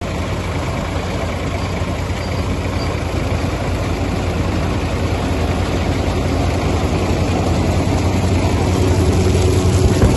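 Tractor engine running steadily, driving a vibrating groundnut grading machine whose shaking sieve rattles the peanut pods; the noise grows slightly louder toward the end.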